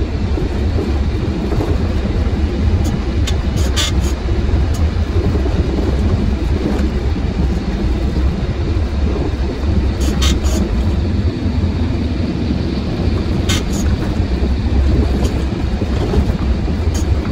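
Truck engine and road noise heard from inside the cab while driving: a steady low drone. A few brief clicks or rattles come through about four seconds in, around ten seconds, and near the end.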